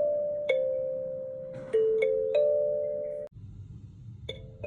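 17-key kalimba played with the thumbs: single plucked tines ring out and overlap one another. About three seconds in the sound cuts off abruptly to a quieter stretch with a low hum, and two more notes are plucked near the end.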